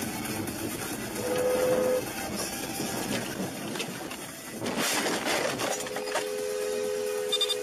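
Road traffic noise with a car horn sounding briefly about a second in, a short rush of noise around five seconds, then a long, steady two-tone horn blast.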